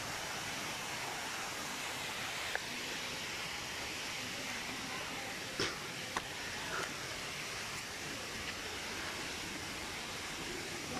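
Steady rush of a waterfall's falling water, with a few brief sharp knocks near the middle.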